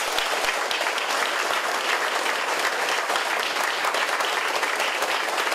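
A large group of people clapping their hands together: steady, dense applause.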